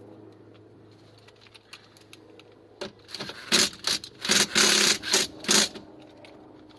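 Cordless drill-driver running in several short bursts, driving in screws, from about three seconds in until near the end.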